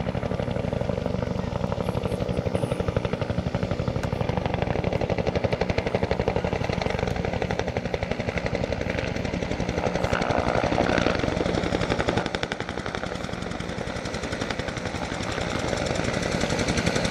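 Low-flying helicopters' rotors chopping: a fast, even blade slap that gets louder near the end as one passes closer.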